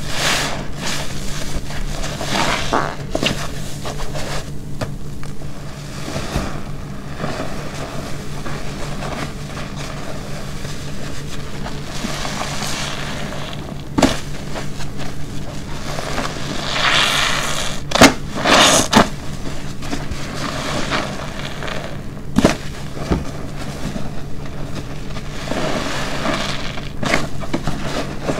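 A black car-wash sponge soaked with shampoo being squeezed and released by hand: repeated squelching and crackling of foam and water, with a few sharp wet pops.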